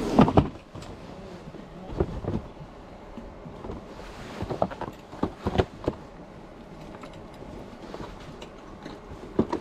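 Cardboard jigsaw-puzzle boxes knocking and sliding as they are pulled off a shelf and handled. There is a cluster of bumps at the start, the loudest, and a few scattered knocks later.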